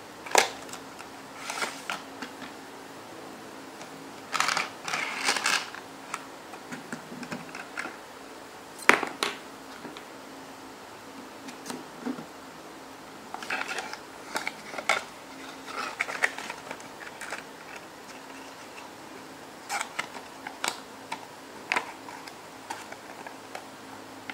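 Unboxing handling noise: a cardboard box and a thin plastic packaging tray being handled and small plastic stacking cups taken out, giving scattered sharp clicks and short rustles. The loudest click comes about nine seconds in.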